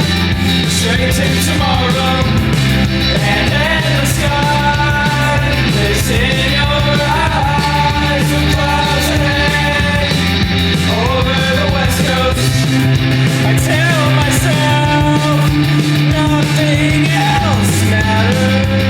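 A rock song with a singing voice over a loud, full band mix.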